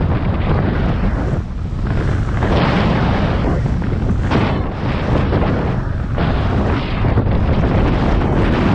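Wind buffeting a helmet camera's microphone during a fast ski run, a constant deep rumble, with surges of hiss from skis cutting through snow every second or so.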